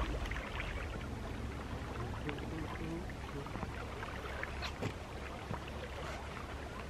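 Small waves lapping and trickling against rocky shore ledges, with a steady low rumble underneath.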